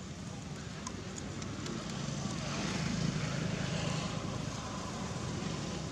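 A motor vehicle passing on the road, its engine hum and tyre noise swelling about two seconds in and easing off near the end.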